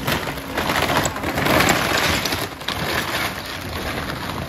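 Excavator bucket crushing a wooden house roof: boards and rafters cracking and splintering and shingled roofing breaking up as the roof caves in, loudest about one and a half seconds in.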